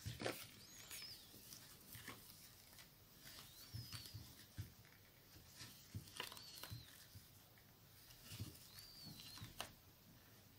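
Near silence with faint crocheting sounds from a crochet hook working yarn: soft scattered ticks and rustles. A few short, faint high squeaks come every two to three seconds.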